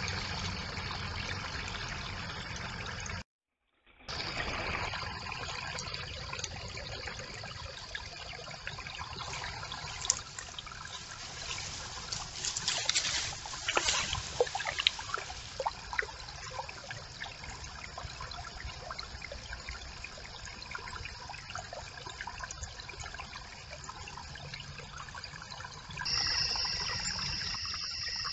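Shallow brook water trickling at a beaver's stick dam, with a few small splashes and clicks in the middle. The sound cuts out for a moment a little after three seconds in, and a steady high-pitched tone comes in near the end.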